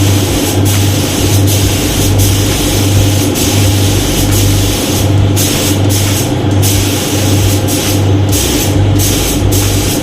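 Air spray gun hissing steadily as paint is sprayed, with a few brief breaks in the hiss in the second half, over a low hum that pulses on and off at an even pace.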